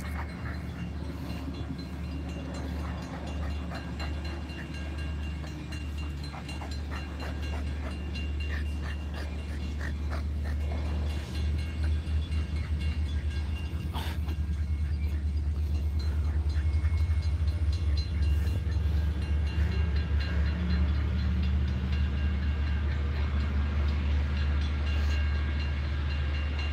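Double-decker commuter train with its diesel locomotive running: a steady low rumble that grows louder from about halfway through.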